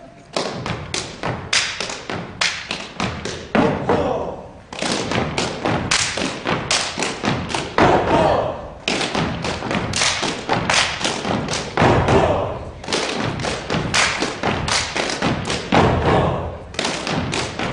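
Gumboot dancers stomping and slapping their rubber gumboots in unison: rapid rhythmic thuds and slaps in phrases of about four seconds, each ending in a brief pause.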